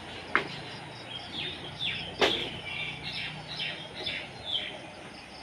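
A bird calling, a run of short falling chirps about two a second, over steady low background noise; two sharp clicks, one just after the start and a louder one about two seconds in.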